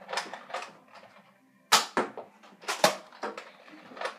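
Toy foam-dart blasters being primed and fired: several sharp plastic clacks and knocks at irregular intervals, some in quick pairs.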